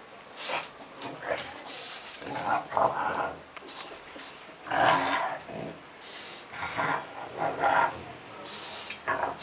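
French bulldog making short, irregular growling noises while play-wrestling with a cat.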